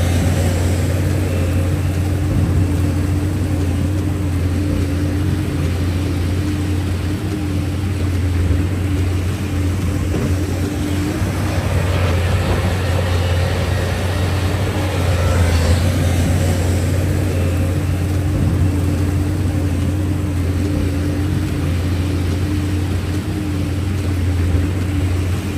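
Heavy diesel engine of a tracked excavator running steadily with a deep hum, over the rush of meltwater flowing across the road.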